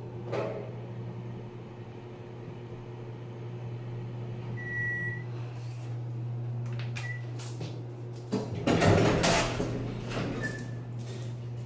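Elevator running with a steady low hum, a short high beep about five seconds in, then the doors sliding open with a loud noisy sweep around nine seconds in.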